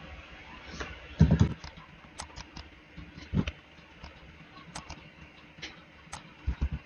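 Scattered clicks of a computer mouse and keyboard as lines are drawn in a CAD program. Duller low thumps come a little over a second in (the loudest), again about three and a half seconds in, and a quick cluster near the end.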